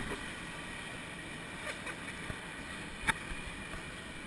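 Swimming-pool water sloshing and lapping against an action camera held at the surface, with a steady rush of water. A few sharp splashes stand out, the clearest about three seconds in.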